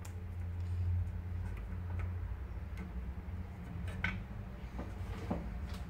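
Scattered light clicks and taps as wires and plastic parts of the drone are handled during soldering, a few of them about a second apart, over a steady low hum.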